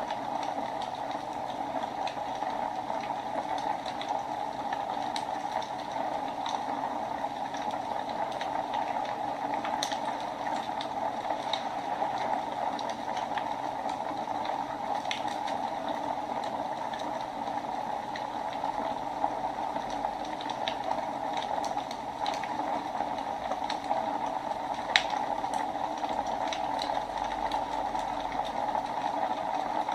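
Wood fire burning in a fireplace: a steady rushing hiss with scattered sharp crackles and pops, the loudest pop about 25 seconds in.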